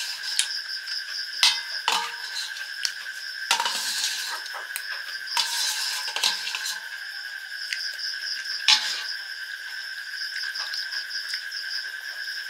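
A steel spoon clinking and scraping against a stainless steel plate in scattered strokes while scooping up leftover food, with a steady high-pitched drone underneath.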